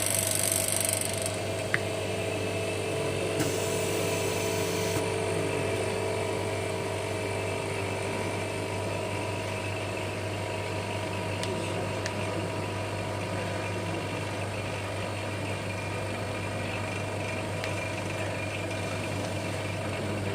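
Steady electric machine hum, likely the OCA lamination machine's motor or vacuum pump running. A short hiss of air comes right at the start and again about three and a half seconds in.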